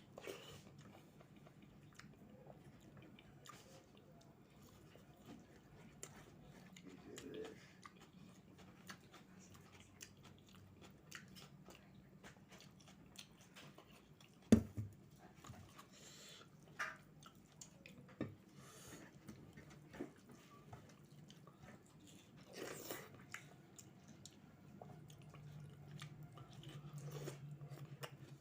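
A person chewing and biting food, with small crunches and clicks throughout. One sharp knock comes about halfway through. A faint low hum runs underneath and grows louder near the end.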